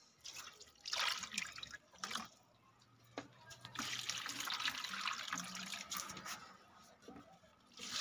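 Water poured by the mugful from a plastic bucket into potted plants: short splashes about one and two seconds in, then a longer pour from about three seconds in until near the end.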